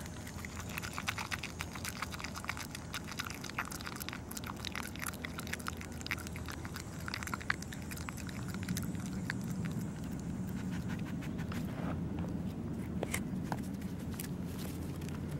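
Groundhog biting and chewing a crisp snack held right up to it, a quick run of small sharp crunches.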